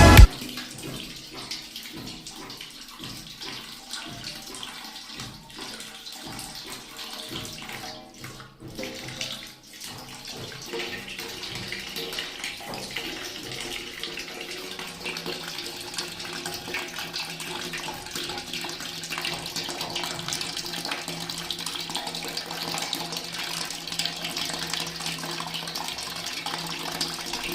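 Water running steadily from a tap, dropping briefly about eight seconds in, then flowing a little stronger with a low steady hum underneath.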